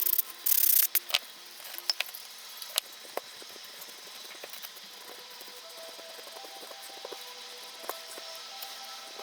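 A few quick scrubbing strokes on the corroded battery contacts in the first second, then scattered small clicks and taps of handling the small camera parts.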